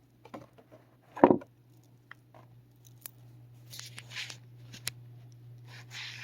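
Oracle cards being handled: small clicks and one louder knock about a second in, then sliding and rubbing of card stock twice, over a steady low hum.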